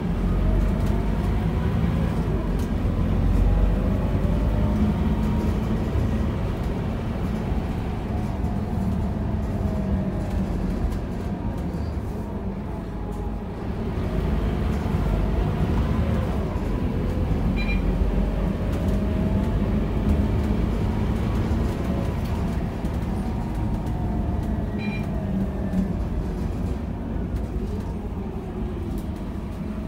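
Scania K230UB city bus heard from inside the passenger cabin: the diesel engine and drivetrain run with a deep rumble, and a whine that rises and falls in pitch several times as the bus pulls away and drives on.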